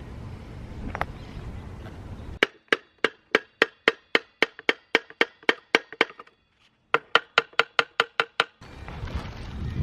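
Workshop room noise with a single metallic clink about a second in. Then, about two and a half seconds in, the background cuts out completely and an added sound effect of hollow, wood-block-like ticks plays, about three a second, with a short pause a little past the middle, ending shortly before the room noise comes back.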